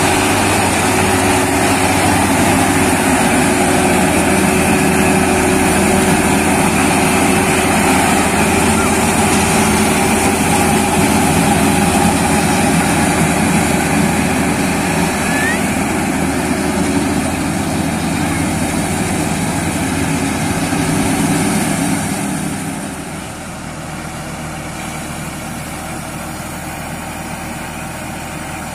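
Tracked Fieldking rice combine harvester running steadily: a constant engine drone with its harvesting machinery, turning quieter about 22 seconds in.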